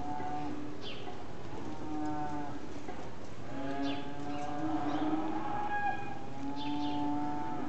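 Calves bawling repeatedly in drawn-out moos, about five calls, some overlapping.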